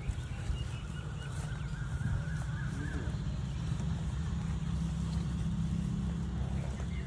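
Low rumble of wind buffeting the phone microphone, with a faint drawn-out animal call, slightly rising, over the first few seconds.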